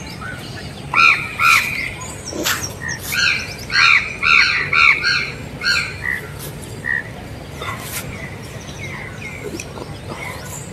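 Birds calling outdoors: a run of about ten loud, short calls, roughly two a second, between about one and six seconds in, then fainter scattered calls.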